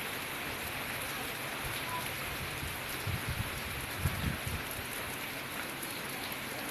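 Heavy rain falling steadily in a dense hiss, with a few soft low thumps about three and four seconds in.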